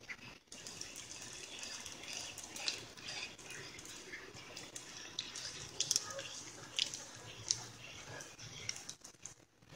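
Flour and sliced garlic frying in olive oil in a frying pan: a soft, steady sizzle with scattered sharper crackles as the flour cooks into a roux to thicken the green sauce. The sizzle drops away briefly near the end.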